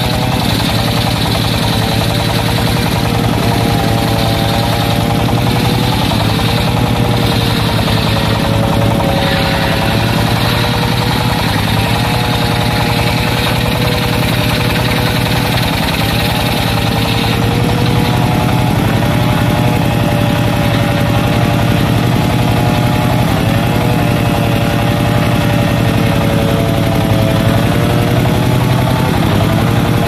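Engine-driven circular sawmill running, its large blade ripping timber. A steady machine drone and whine whose pitch sags briefly and recovers several times as the blade takes the load of the cut.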